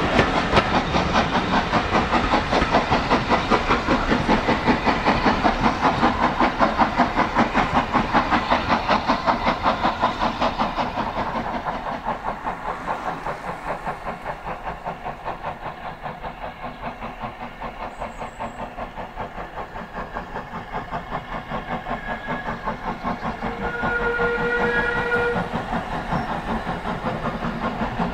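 Passenger coaches rolling past on a heritage steam railway, their wheels clattering in a fast, even rhythm that fades as the train draws away. About 24 s in, a steam locomotive gives a short whistle.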